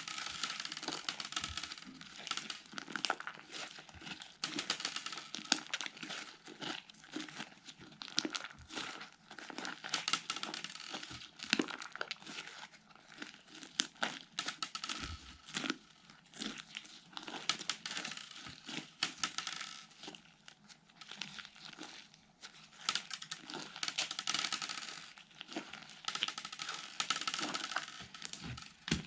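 Slime being squished and kneaded by hand, a dense, irregular crackling and popping that runs on without a break.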